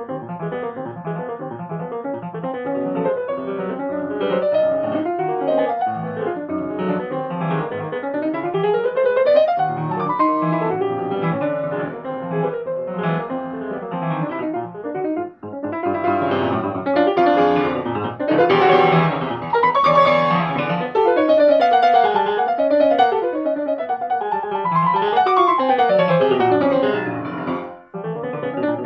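Solo grand piano played fast and loud, with rapid runs sweeping up and down the keyboard, a brief break about halfway through, and the loudest passage just after it.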